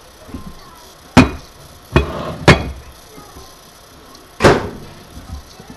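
Four sharp clunks of cookware being handled and set down in a kitchen, the loudest about a second in, two more close together around the middle, and a last one near the end.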